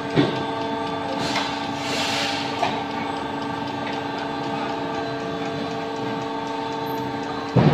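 Automatic fly ash brick making machine running: a steady hum of several tones from its hydraulic press. A hiss swells and fades about one to two and a half seconds in, with short louder knocks near the start and near the end.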